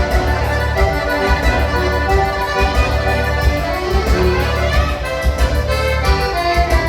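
Music with a steady, pulsing bass beat and sustained melody notes.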